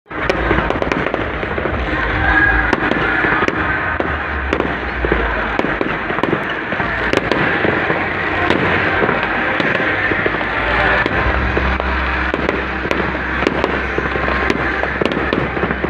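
Fireworks going off continuously, a dense run of sharp pops and crackles over a steady low rumble.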